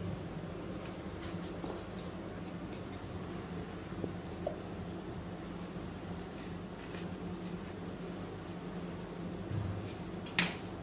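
Knife sawing through a crisp grilled sandwich: irregular crackling and scraping as the blade cuts the toasted bread, with the loudest crunch near the end.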